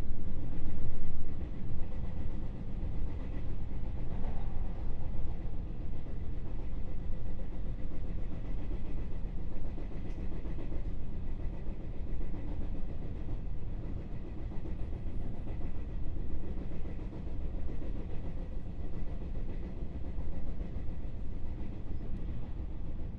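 Running noise heard inside a JR West 221 series electric motor car: a steady rumble of wheels on rail, louder for a moment about a second in.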